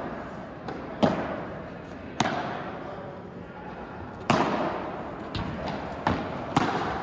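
Padel rally: the ball is struck by rackets and bounces off the court and walls, a series of sharp pops at irregular intervals, each trailing off in echo.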